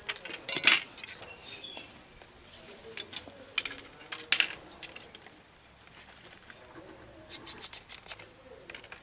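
Sickle blade splitting and scraping green reed bamboo into thin weaving strips: a series of short, sharp cracking and rasping strokes, loudest about a second in.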